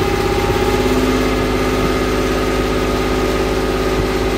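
The Leyland L60 engine of a Chieftain Mk10 tank, a two-stroke opposed-piston multi-fuel diesel, running steadily.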